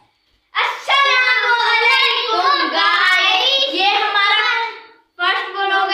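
Children singing the national anthem without accompaniment, starting about half a second in, with a short break for breath about five seconds in before the next line.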